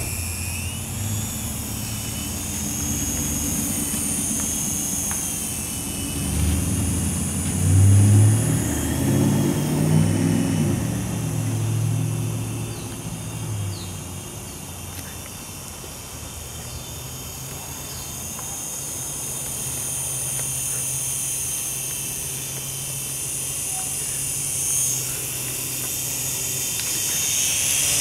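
Syma S107 toy helicopter's small electric motors and rotors whirring, a high whine that wavers in pitch as the throttle changes. A stretch of loud, low muffled rumbling from about six seconds in to about halfway, the loudest part.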